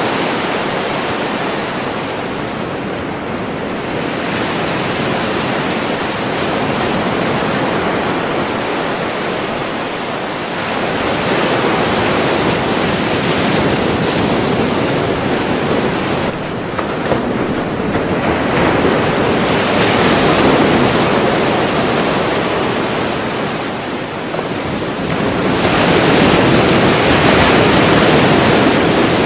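Ocean waves breaking and washing in surf, a continuous rush that swells and ebbs as successive waves come in, with the loudest surge near the end.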